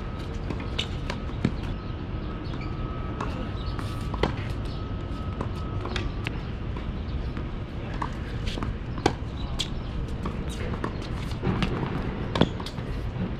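Tennis rally on a hard court: sharp pops of racket strikes and ball bounces every second or two, the loudest near the end, over a steady low background rumble.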